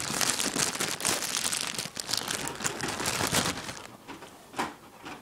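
A single sharp click, then dense crinkling and rustling of something being handled for about four seconds, fading near the end.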